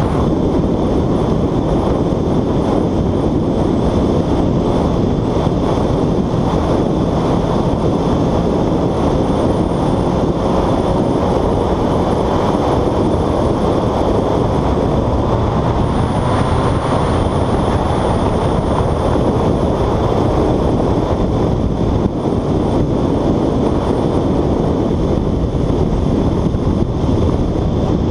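Motorcycle at highway speed: a steady, loud rush of wind and road noise picked up by a helmet-mounted camera.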